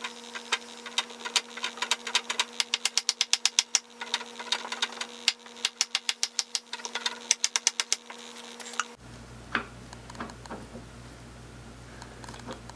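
Quick runs of sharp metallic clicking, twice, with a pause about five seconds in, over a steady hum, as the lead screw and gears of a vintage lathe's quick change gearbox are worked loose; lighter handling clatter follows after about nine seconds.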